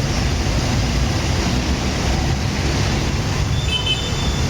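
Steady low rumble of wind buffeting the microphone outdoors, with a brief high-pitched chirp-like sound about three and a half seconds in.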